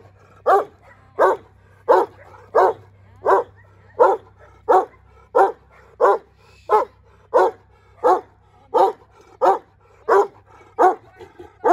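A large chained Turkish shepherd dog barking steadily at a stranger, deep single barks in an even rhythm of about three every two seconds: a guard dog's warning barking.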